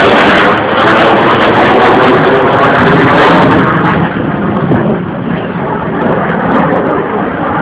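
Loud, steady rushing jet noise from F/A-18 Hornets' twin F404 turbofan engines flying overhead, easing off a little about four seconds in.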